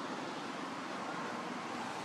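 Steady outdoor background noise with no distinct event, of the wind-on-the-microphone or distant-traffic kind.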